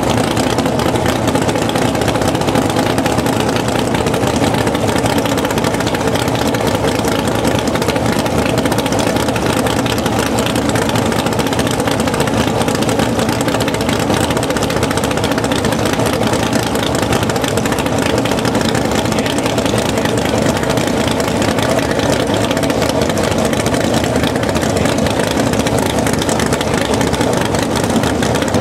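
Top Sportsman drag cars' V8 engines idling loudly and steadily while they wait to launch.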